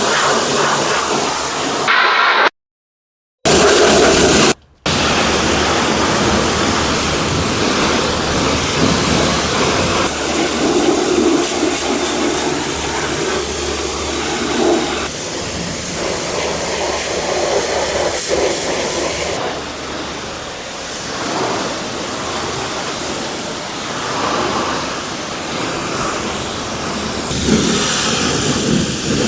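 High-pressure car washer spraying water onto a car: a loud, steady hiss of the jet, shifting a little in tone as the spray moves. It cuts out to silence twice in the first five seconds.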